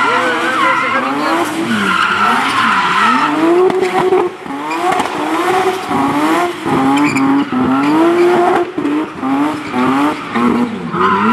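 Supercharged BMW E36 M3's straight-six engine revving hard during a burnout, its rear tyres spinning and squealing in continuous skidding. From about four seconds in, the revs rise and fall roughly once a second, with short dips in level as the throttle comes off and goes back on.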